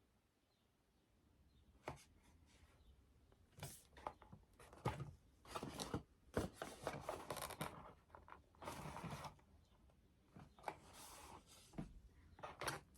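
Faint handling noises of foam board being worked with a hot glue gun: scattered taps and clicks and several short rustling, scraping strokes.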